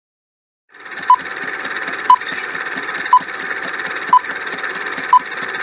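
Countdown timer sound effect starting about a second in: rapid clock-like ticking over a steady hiss, with a short beep once a second.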